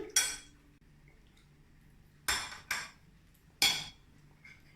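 Cutlery and dishes clinking at the table: four short, bright clinks, one just after the start, two close together about two seconds in, and one more about a second later.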